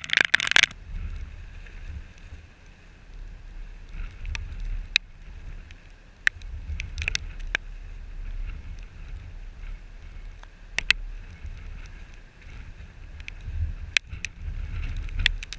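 Gusting storm wind buffeting the microphone in a low rumble, with scattered sharp taps through it.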